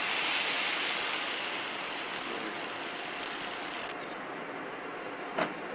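Egg batter sizzling and crackling in hot oil in a small black pot, the sizzle dropping somewhat about four seconds in; one short knock near the end.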